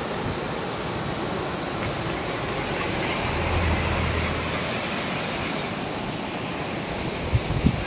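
Steady rush of road and traffic noise with wind on the microphone while cycling along a road, a low engine hum swelling and fading about halfway through. Wind buffets the microphone in low thumps near the end.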